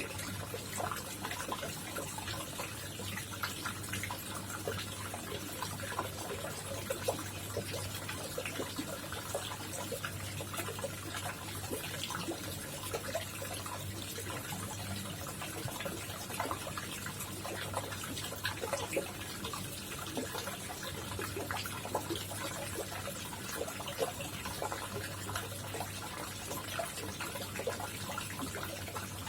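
Koi pond water trickling and splashing steadily, with many small splashes and drips over a low, steady hum.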